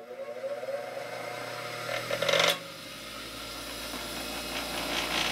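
Half-horsepower bench grinder switched on, its motor spinning up with a rising whine and then running steadily with a hum. There is a brief louder whirring rattle about two seconds in.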